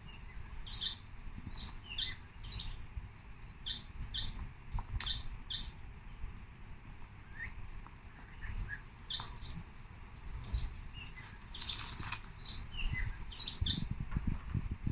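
Small birds chirping: short, high chirps at irregular intervals over a low steady rumble, with some low knocking or handling noise near the end.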